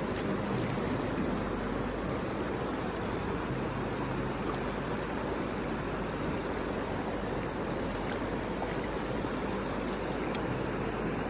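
Steady rush of a wide, fast river flowing over a stony bed.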